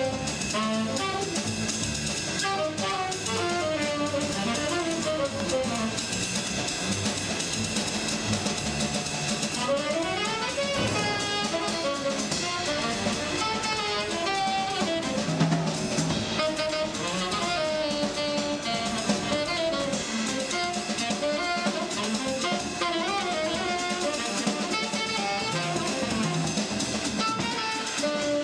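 Instrumental background music with guitar and drums.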